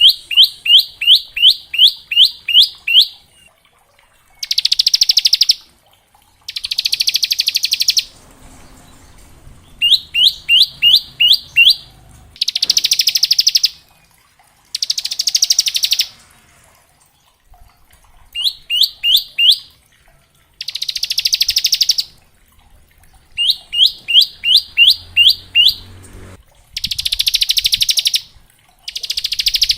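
Ciblek (bar-winged prinia) singing in alternating phrases: runs of four to ten sharp repeated chirping notes, about three a second, and dense buzzing trills of one to two seconds, the 'ngebren' trill.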